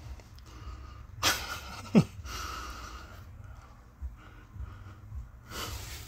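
A person's heavy breath sounds close to the microphone: an exhale about a second in, a short hum of the voice, and another exhale near the end, over a low rumble.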